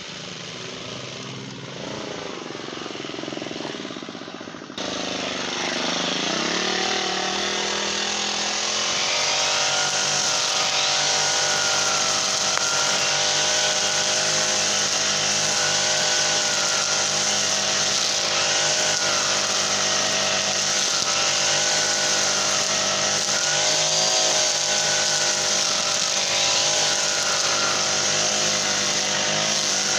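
Brush cutter with a Honda GX35 four-stroke engine: it runs lower and quieter at first, then climbs in pitch about five seconds in and holds at high revs, steady with slight rises and dips in pitch.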